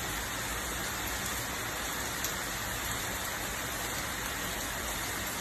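Steady rain-like hiss of noise, even throughout, with one faint click a little past two seconds in.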